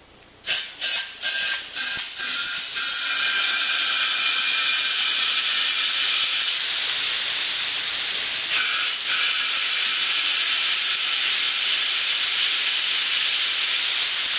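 Compressed air being blown into a car tyre to reseat its bead. It starts as a quick series of short hissing blasts, then becomes a steady, loud hiss of air rushing and escaping past a bead that has not yet seated.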